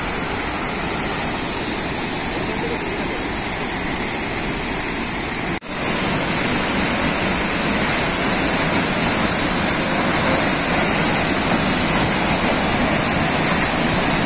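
Changey Falls waterfall in heavy monsoon flow: a steady rush of falling water. It breaks off for a moment about five and a half seconds in, then carries on slightly louder.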